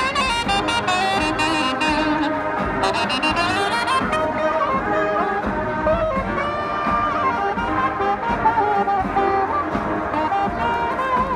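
Marching band brass playing a jazz-style tune, with trombones, trumpets and saxophones together.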